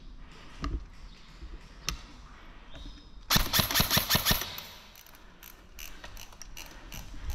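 Airsoft gun firing a rapid full-auto burst of about a second, roughly ten shots in a quick even rhythm, a little over three seconds in. A couple of single sharp clicks come before it.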